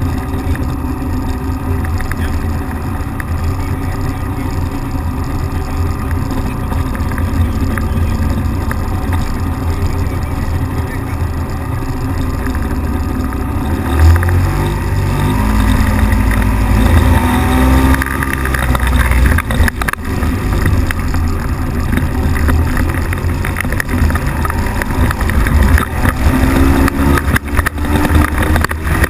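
Microlight trike's engine and pusher propeller running steadily, then revving up with a rising pitch about halfway through and again near the end, as it rolls across grass. Heavy wind noise and rumble on the microphone.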